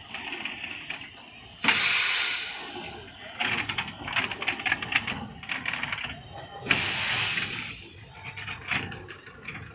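Peckett saddle-tank steam locomotive, works number 2050 of 1944, letting off steam: two loud bursts of hiss, each about a second and a half long, one near the start and one about two-thirds of the way through.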